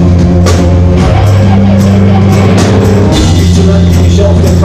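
Live rock band playing loud: strummed acoustic guitar over a drum kit and sustained low notes, with no singing.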